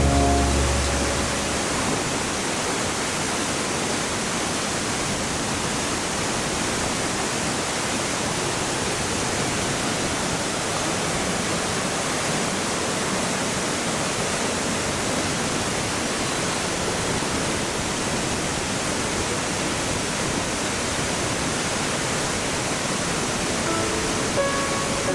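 Steady, even rush of a waterfall's falling water. Background music fades out in the first second or so and comes back in near the end.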